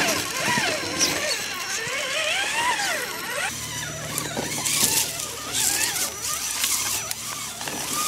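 Electric motor and gears of a radio-controlled scale rock crawler whining, rising and falling in pitch with the throttle, with crackling of tyres over dry leaves and rocks that gets stronger about halfway through.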